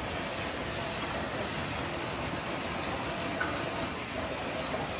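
Junyao L1000 pillow-type flow-wrap packing machine running, a steady mechanical noise without pauses.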